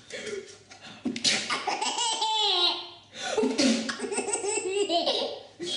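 Baby laughing in two long fits of giggles and belly laughs, the first about a second in and the second starting around three seconds in.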